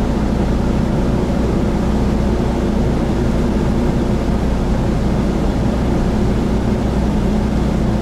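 Motor launch's engine running with a steady low drone, heard inside the passenger cabin.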